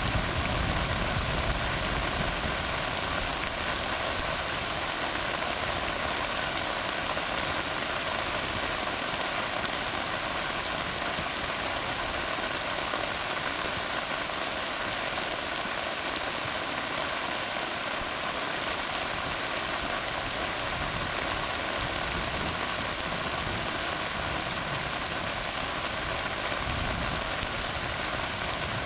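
Steady rain falling on a tar road: an even, dense hiss of drops with many small individual drop ticks, unchanging throughout.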